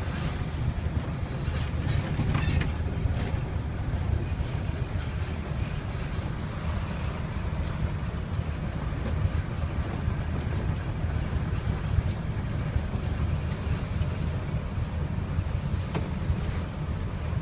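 Steady low rumble of a vehicle driving slowly on a dirt and gravel road, heard from inside the cab, with a few light ticks.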